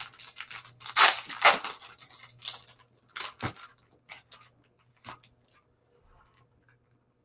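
Trading cards and their packaging being handled: a string of short rustling, scraping noises, the loudest two about a second in, half a second apart, then fainter ones about once a second.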